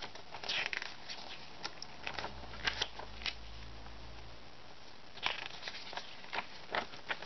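Paper pages of a folded instruction manual being handled and turned: scattered short rustles and crinkles.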